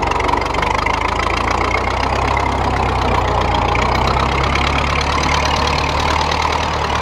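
The four-cylinder engine of a homemade 1927 Ford Model T tractor, running steadily as it pulls a plow through the soil.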